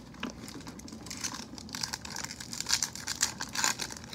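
Foil wrapper of a baseball card pack crinkling and rustling in the hands as it is torn open, in irregular bursts that are busiest in the second half.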